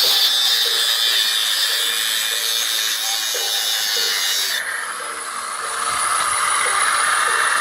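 Homemade angle grinder running and cutting, a steady hiss of the disc against the material. The sound changes abruptly about four and a half seconds in.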